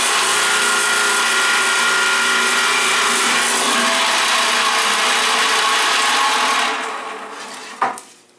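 Delta 13-spindle line boring machine running, its motor and spindles whirring steadily with a few steady tones as the row of bits bores shelf-pin holes into a plywood board. About six and a half seconds in it winds down, and a single sharp knock follows near the end.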